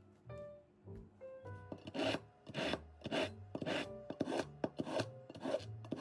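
Rhythmic scraping strokes, about two a second, starting about two seconds in, over soft background music.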